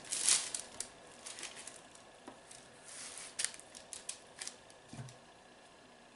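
A spatula spreading peanut butter over rolled candy dough on wax paper: soft, scattered scrapes and rustles, with a louder scrape about a quarter of a second in.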